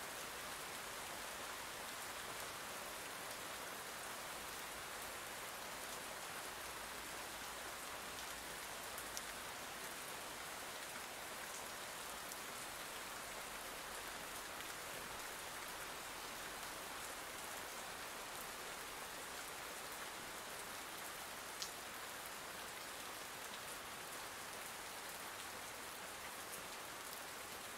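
Steady rain falling, an even hiss, with a couple of single louder drop ticks about nine and twenty-one seconds in.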